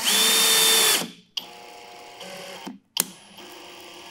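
Cordless drill driver driving a screw into a block of wood: the motor whines at speed for about a second and stops. A fainter steady hum with two sharp clicks follows.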